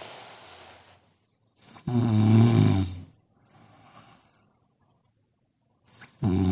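A sleeping person snoring: a soft breath, then a loud, low, buzzing snore lasting about a second, a faint breath, and the next loud snore starting near the end.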